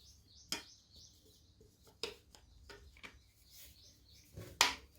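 Light clicks and taps from handling the opened Echo Dot 3rd Gen smart speaker and small tools on a work surface: a single click about half a second in, a few quick ones around the middle, and a sharper knock near the end.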